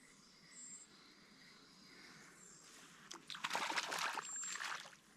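A small hooked lake fish splashing and thrashing at the water's surface as it is reeled in close, a stretch of irregular splashing starting about three seconds in after a quiet start.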